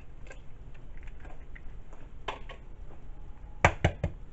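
Eggs cracked against the rim of a ceramic bowl: one sharp knock about two seconds in, then three quick knocks near the end.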